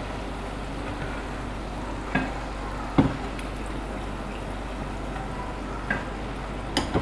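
Doughnuts deep-frying in hot oil with a steady sizzle, while a wire mesh skimmer lifts them out of the pan. A few short sharp taps of the skimmer against the pan break the sizzle, the loudest about three seconds in.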